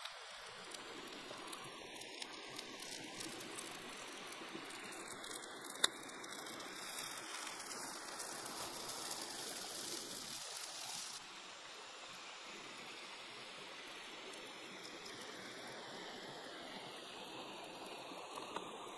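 Juices sizzling and bubbling around chili-topped squid on a flat stone heated by a wood fire, with small crackles and one sharp pop about six seconds in. A stream is running, and the sound drops a little about eleven seconds in.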